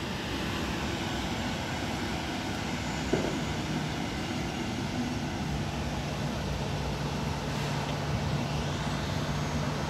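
Boeing 737 jet engines running at idle: a steady noise, with a low steady hum joining about halfway through.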